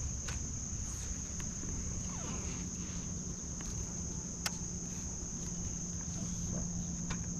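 Steady high-pitched insect drone over a low steady hum and rumble, with a few faint clicks.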